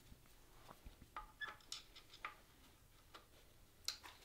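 Faint, scattered light metallic clicks of a hand tool working a Torx 40 screw on an engine's lifting eye: a few quick ticks about a second in, another around two seconds in, and a last one near the end.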